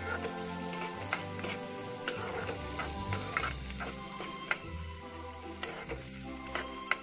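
Chopped onions sizzling in oil in a stainless-steel kadai while a steel spoon stirs them, scraping and clicking against the pan several times a second at an uneven pace.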